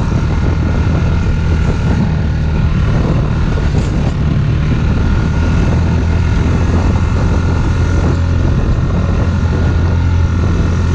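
Off-road vehicle engine running at a steady, even pace while cruising, with wind noise on the microphone.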